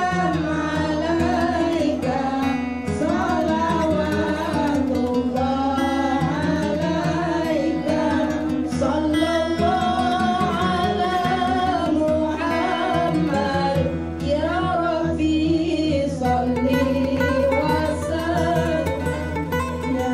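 Background music: a voice singing a flowing, gliding melody over plucked-string accompaniment.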